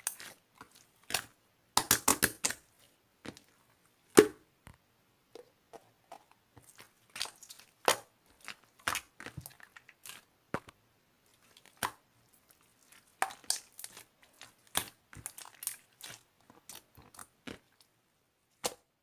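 Homemade slime being pressed and squeezed by hand, giving irregular sharp pops and clicks, with a quick run of them about two seconds in and one louder pop shortly after.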